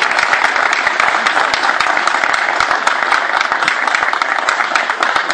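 A small group of people clapping their hands: dense, steady applause.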